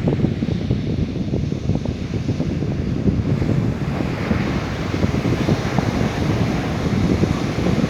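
Wind buffeting the microphone with a steady low rumble and flutter, and a rushing hiss that grows brighter about four seconds in.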